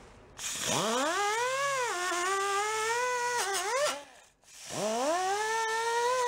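Power tool spinning a wire wheel against the top of the cylinder and piston, scrubbing grime off it. Its whine rises as the motor gets up to speed and sags and wavers as the wheel bears on the metal. It spins down and stops about four seconds in, then starts again soon after.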